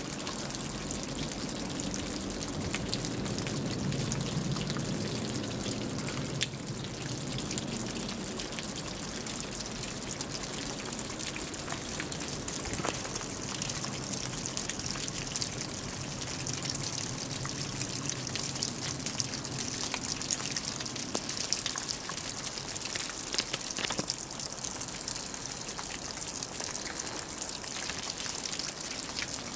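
Snowmelt dripping from the edge of a thatched straw roof: many drops falling at once and striking below in a dense, even spatter of small ticks over a soft hiss. This is the thatch shedding the meltwater of a heavy snowfall.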